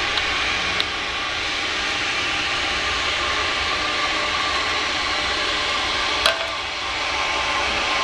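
Steady hissing noise, with a few light clicks and one sharper click about six seconds in.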